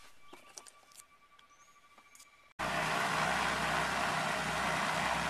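A quiet stretch with a few faint taps and a faint steady high tone, then, about two and a half seconds in, a sudden jump to the loud steady cabin noise of the Cessna 310Q's twin piston engines running.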